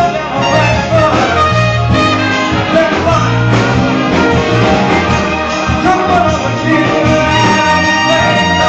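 Live band music with brass leading the melody over a steady bass pulse.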